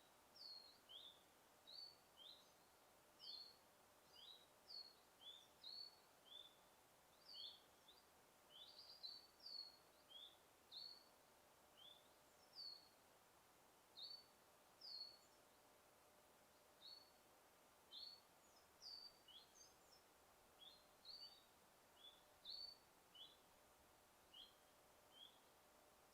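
Songbirds chirping: short, high notes that each drop quickly in pitch, coming irregularly about one or two a second over a faint steady hiss.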